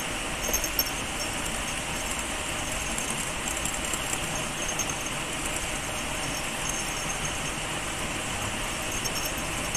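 Steady rushing of flowing river water, with faint high chirping above it and two short sharp clicks about half a second in.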